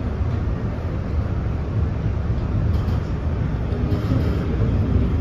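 Steady low rumble inside a PATH PA5 rapid-transit car, with faint steady tones coming in about four seconds in and the sound growing slightly louder near the end.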